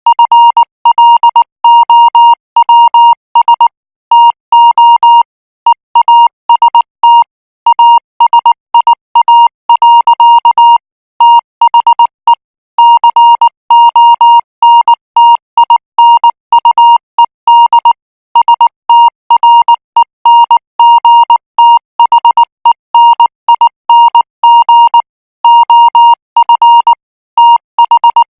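Morse code practice signal sent at 18 words per minute: a single steady beeping tone keyed on and off in short dots and longer dashes, grouped into characters and words by short pauses.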